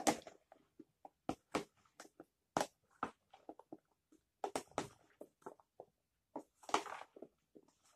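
A plastic spoon stirs chopped banana, apple, kiwi and pineapple in orange juice inside a plastic food container. It makes irregular soft clicks and knocks, several a second, as the spoon turns the fruit and hits the container.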